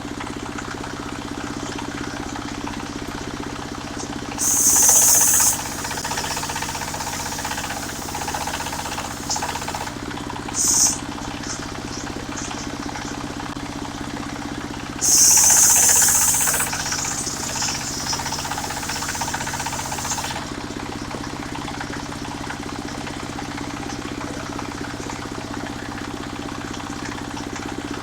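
Engine of a mobile circular sawmill running steadily while the blade cuts through a jackfruit log. The blade bites in with a loud, high-pitched burst about four seconds in, a short one near eleven seconds and another about fifteen seconds in, the cut going on until about twenty seconds; then only the engine runs.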